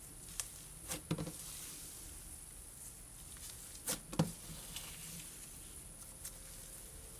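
Slime being stretched and squished by hand, giving off a faint crackling sizzle with a few sharp pops, the loudest about a second in and about four seconds in.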